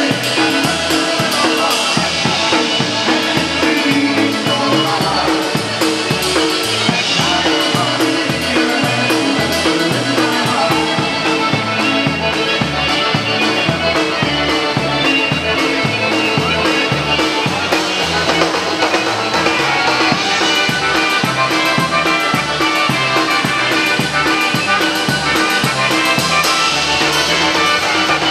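Live polka band playing, amplified in a large hall: a drum kit keeps a steady beat under electric guitars and the rest of the band.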